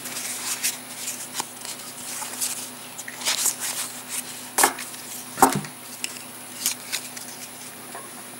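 Stiff game cards handled by hand: a run of light clicks and rustles as the deck is fanned, slid apart and squared up. Two sharper taps come a little past halfway.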